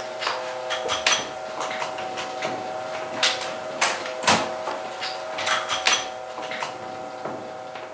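Cylinder proof press being worked to pull linocut prints: irregular sharp clicks and clacks from the press and the paper being handled, over a steady hum.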